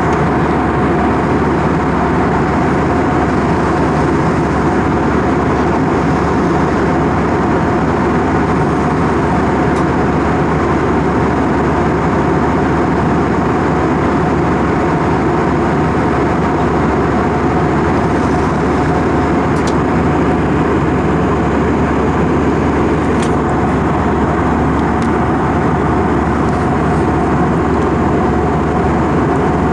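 Steady cabin drone of a jet airliner in flight, its turbofan engines and rushing air heard through the window seat, with a faint steady hum in the noise.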